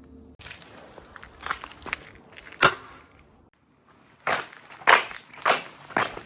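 Marbles rolling and clattering along a marble-run track, with sharp clacks over a rolling rumble. There is a brief lull just past the middle, then a run of evenly spaced clacks about every half second.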